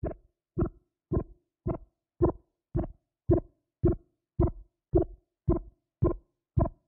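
A steady beat of single pitched thumps, about two a second, thirteen in all: the bare opening pulse of a rock track, before the guitars come in.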